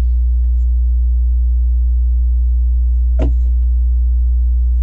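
Loud, steady low electrical hum with a ladder of buzzing overtones, the kind of mains hum picked up by the recording chain. One brief knock about three seconds in.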